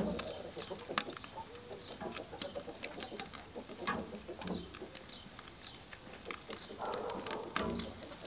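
Steel barbecue tongs clicking and scraping against a charcoal grill's grate and the hot dogs as they are turned over the coals, in scattered sharp clicks.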